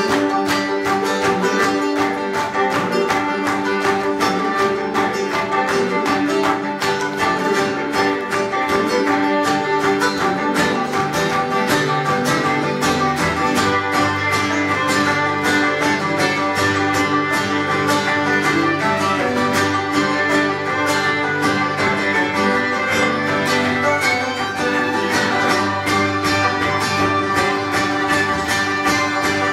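Acoustic string band playing an instrumental passage: fiddle, banjo, acoustic guitar and upright bass, over a fast, steady picked rhythm. From about thirteen seconds in, low held notes come in from the bowed upright bass.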